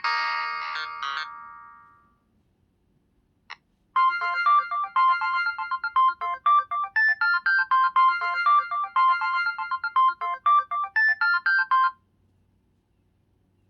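Built-in ringtones of an LG Extravert 2 (VN280) cell phone. One tune's last chord fades out, a single click follows, then a fast, bright melody of short notes plays for about eight seconds and stops.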